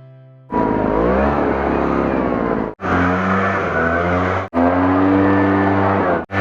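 Small petrol engine of a grass cutter or leaf blower running at high revs, its pitch rising and falling, in short stretches that cut off abruptly three times.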